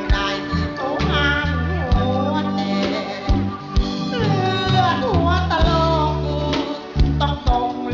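Live band music with a man singing into a microphone in a wavering, gliding voice. Bass notes and drum hits keep a steady beat.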